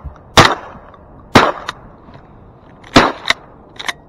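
Shotgun blasts: three loud shots about a second or so apart, then two fainter sharp cracks close together near the end.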